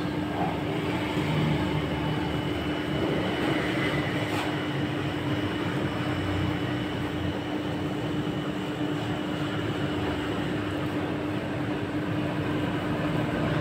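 Rolled-ice-cream machine's refrigeration unit running under its steel cold plate: a steady hum, one constant tone over an even noise.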